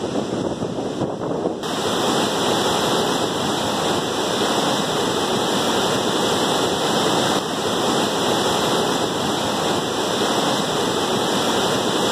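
Large waterfall in full flood after heavy rain: a steady rush of falling water. About a second and a half in, the sound turns brighter, with more hiss.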